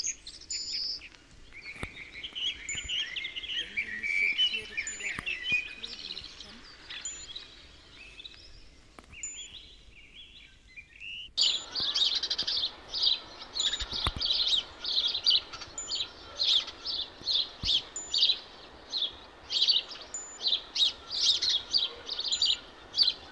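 Wild birds singing in woodland: varied warbling at first, then, after an abrupt change about halfway through, a bird repeating short high chirps about two or three times a second.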